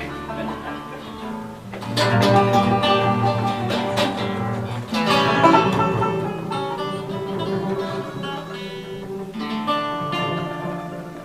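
Acoustic guitar playing the instrumental opening of a folk song, plucked and strummed chords with no singing yet.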